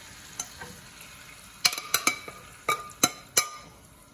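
Curry-marinated chicken sizzling in a hot oiled skillet, with a faint steady hiss. A metal spoon clinks sharply against the bowl and pan about seven times as the marinade is scraped out, most of the clinks in the second half.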